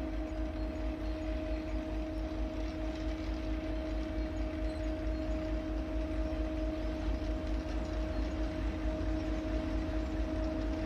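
T458 diesel locomotive running as it approaches slowly with a fuel train: a steady engine drone over a low rumble, growing slightly louder.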